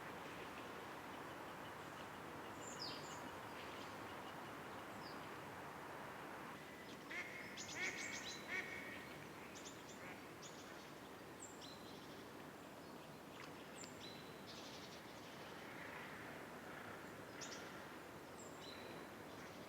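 Birds calling over a steady background hiss: a short run of duck quacks about seven to nine seconds in, then scattered high chirps and short falling whistles.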